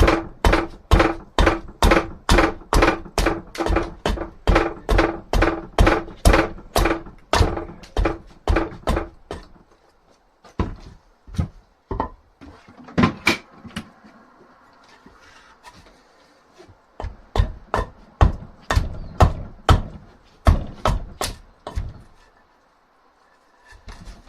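Axe chopping into dried wood to shape an axe handle: a fast, even run of sharp chops, about three a second, each with a short ring. The chops become sparser, stop for a short lull, then pick up again in another run.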